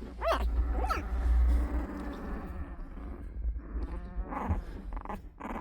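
Young puppies whimpering: two short, high squeaks that rise and fall, about a third of a second and a second in, then fainter small noises.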